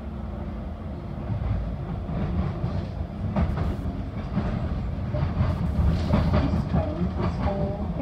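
Docklands Light Railway train running, heard from inside the carriage: a steady low rumble with clicks and rattles of the wheels over the track. It grows a little louder about a second and a half in.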